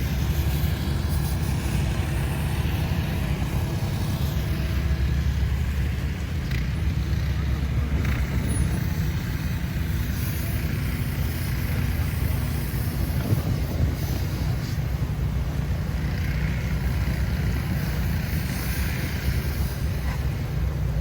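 Steady outdoor city street ambience in a snowstorm: a continuous low rumble of road traffic.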